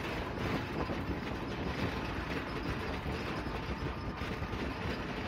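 Steady rumbling running noise of a moving vehicle.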